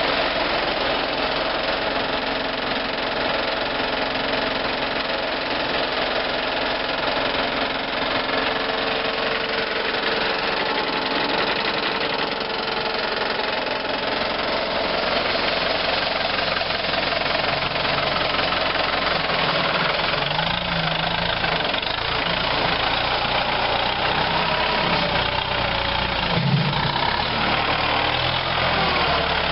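Kubota utility tractor's diesel engine running steadily, its note changing in the second half. There is a brief louder sound near the end.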